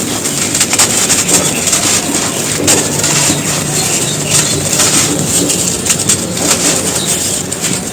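Soft, dusty bricks being crumbled, a steady dense crunching made of many small crackles and cracks.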